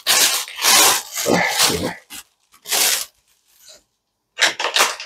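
Plastic packaging crinkling and rustling in several short bursts as a new cap is pulled out of its bag, with a quiet gap of about a second shortly before the end.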